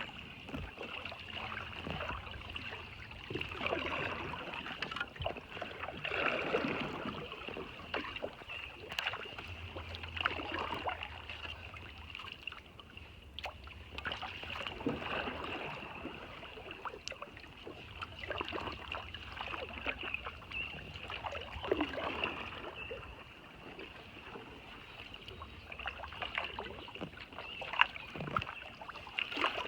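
Kayak paddle strokes splashing and dripping in the water, one swell every two to four seconds, over a steady high hiss.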